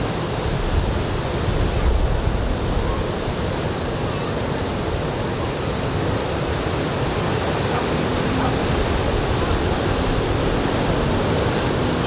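Ocean surf from a typhoon swell breaking and washing on a sandy beach, a steady rushing noise, with wind buffeting the microphone in low gusts.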